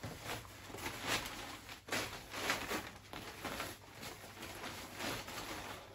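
Stiff Tyvek bivy-bag fabric rustling and crinkling in irregular swishes as it is shaken out and spread by hand.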